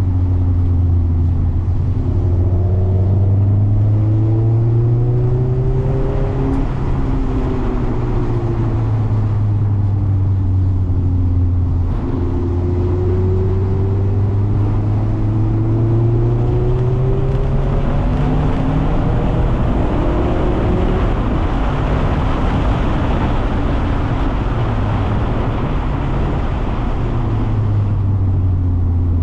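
Mazda MX-5 (ND) four-cylinder engine under power on track, its pitch climbing and falling as it accelerates and lifts, with a sharp drop in pitch a third of the way in like an upshift. A hiss of tyres on the wet track swells in the second half.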